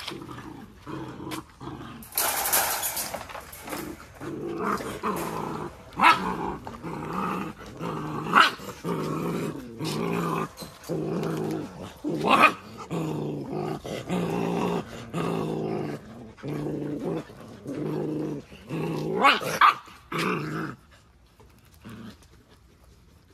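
Belgian Malinois puppies growling as they fight over a raw beef rib: a string of low growls, each about a second long, with a few sharp yips mixed in, dying down near the end.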